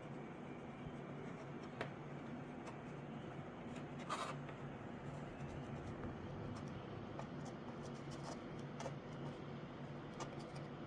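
Light scratching and rubbing on a surface, with scattered small clicks and one louder scrape about four seconds in, over a steady low hum.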